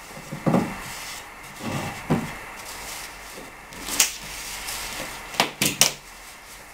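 Knocks and clatter of a Swiss stone pine plank being set down and shifted on a drawing table: a few dull wooden thumps, then a sharp tap about four seconds in and a quick run of three or four sharp clicks near the end as rulers and tools are handled.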